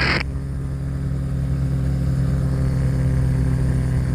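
Rotax 582 two-stroke twin of a Spectrum Beaver RX 550 ultralight, turning its two-blade Warp Drive propeller and droning steadily in flight.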